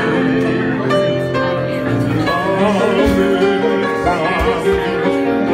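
Slow ballad music between sung lines: sustained chords and long held notes, some of them wavering.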